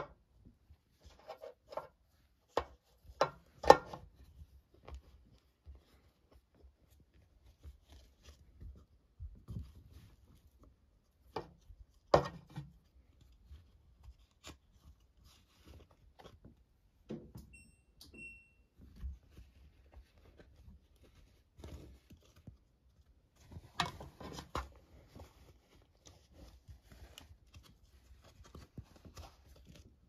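Scattered knocks, clicks and thumps picked up from inside an empty washing machine drum, with sharp knocks a few seconds in and about twelve seconds in and a cluster of them later on.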